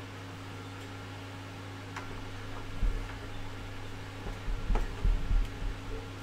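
Small 3D-printer parts being handled and knocked on a table: a couple of light taps about two and three seconds in, then a cluster of dull knocks near the end, over a steady low hum.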